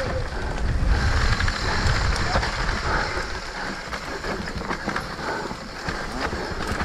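Mountain bike descending fast on a loose dirt trail: knobby tyres rumbling and crunching over loam and leaf litter, with the bike rattling and clattering over the bumps.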